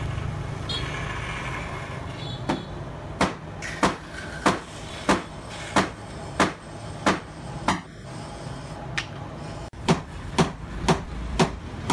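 Hammer blows on a solid-wood bed frame, knocking the side rail tight into the corner post. A steady series of about eight strikes comes roughly two-thirds of a second apart. After a short pause a slightly quicker run of strikes follows.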